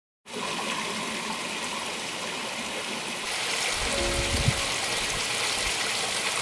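Running water of a stream, a steady rushing hiss that cuts in suddenly near the start and gets brighter about halfway through, with a low rumble a little past the middle.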